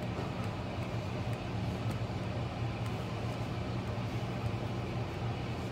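Pet drying cabinet's blower running steadily, a constant hum with a rush of air, blowing the dog's fur dry inside the box.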